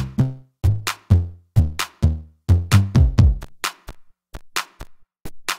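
Electronic dance music with a drum-machine beat and a pitched bass line. About four seconds in the bass drops out, leaving only the sharp drum hits.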